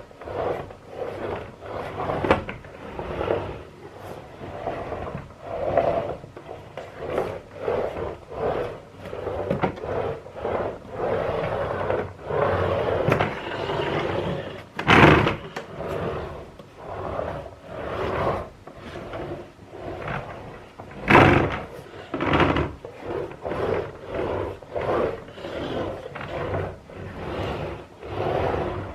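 Repeated scraping and knocking of objects being handled, roughly one every second, with two louder knocks about halfway through and again about two-thirds of the way in.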